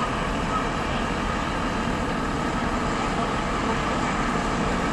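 Engines of large trucks running steadily, a continuous even noise without revs or breaks.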